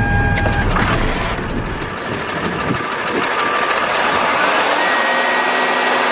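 Cummins 5.9-litre six-cylinder turbo-diesel idling, with a steady high whine over the running engine. There is a short click under a second in.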